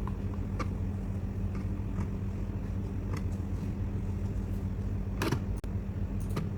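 Steady low electrical-sounding hum, with scattered light clicks and rustles from handling the crochet piece and sewing needle. The loudest click comes about five seconds in.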